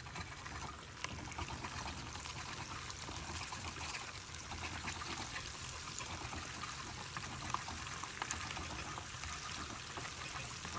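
Onion and homemade tomato paste frying in hot oil in a pan, stirred together: a steady sizzle with scattered small crackles.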